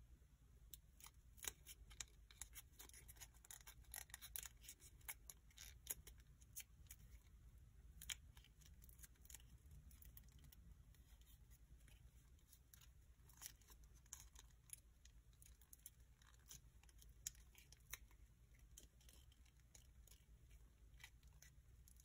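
Sheet of origami paper crackling and clicking faintly as fingers fold and crease a small folded model, in many short, sharp crinkles that come thick in the first several seconds and then thin out.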